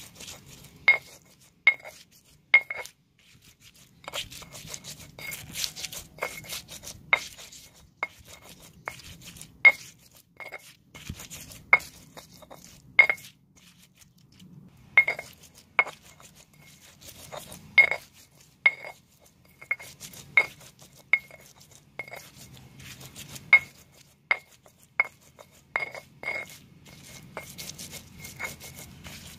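Stone pestle grinding and knocking in a stone mortar (cobek and ulekan), crushing chilies, shallots and lamtoro seeds into sambal. Sharp ringing clinks come irregularly, about once a second, between quieter gritty rubbing.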